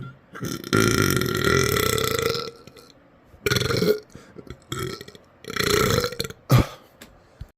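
A man burping loudly: one long drawn-out burp lasting nearly two seconds, then three shorter burps and a brief sharp one near the end.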